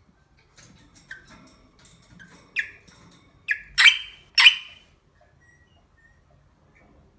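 An animal's short, high squeaks and clicks, building to two loud, harsh squeals about four seconds in.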